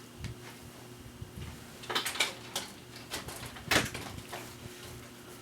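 Baseball trading cards being handled and slid against one another as they are flipped through: a few soft swipes about two seconds in and a louder one just before four seconds, over a low steady hum.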